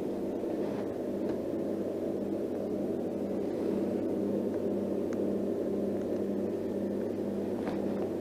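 Steady low electric hum of a small boat motor running, with a few faint ticks from handling the line and fish.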